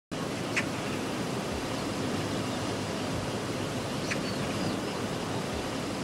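Steady hiss-like ambient noise, with a few faint high chirps about half a second in and again around four seconds in.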